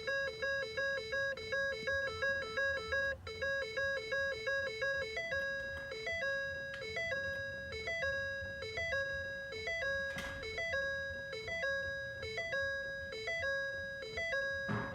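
Ford F-250's dashboard warning chime going off nonstop, set off by wiggling the key in the ignition. It starts as a fast two-note beeping for about five seconds, then slows to a beep about once a second. It is the sign of an erratic electrical fault: the truck won't start and shows many errors on the dash.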